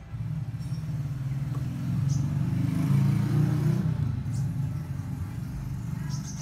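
A low vehicle engine rumble that swells to its loudest about halfway through and then eases off, as of a passing motor vehicle. It is joined by a couple of faint light clicks.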